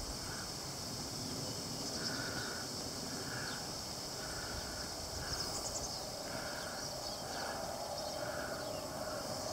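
Outdoor summer ambience: a steady high-pitched insect drone, with a short mid-pitched sound repeating about once a second. Under it are the faint, muffled hoofbeats of a horse moving at a slow gait on arena sand.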